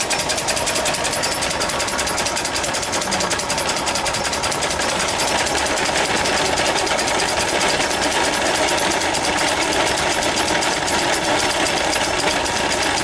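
Homemade steam engine running steadily under load, driving a hand-model corn grinder: a rapid, even mechanical beat with the grinder's burrs working through corn.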